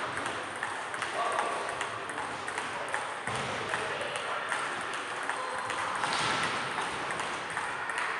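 Table tennis ball clicking off bats and table during rallies, irregular sharp ticks in quick succession, with more ball clicks from neighbouring tables overlapping.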